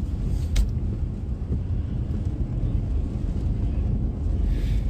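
Steady low rumble of a car driving on a wet road, heard from inside the cabin, with a click about half a second in and a brief hiss near the end.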